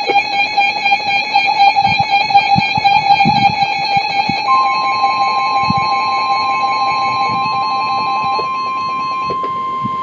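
Emergency Alert System attention signal: loud, steady electronic alarm tones. A second, slightly higher tone joins about halfway through, and the lower tones drop out about nine seconds in.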